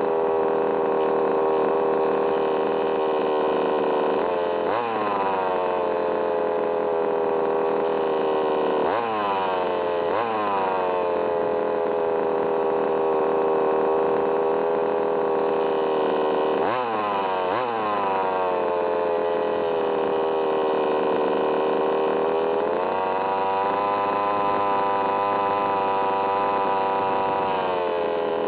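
The small two-stroke CY petrol engine of an HPI Baja 5B RC car, running with a steady, high-pitched drone. Its speed briefly jumps and settles back a few times, then rises a little and holds near the end. The owner finds the noise strange and cannot place it.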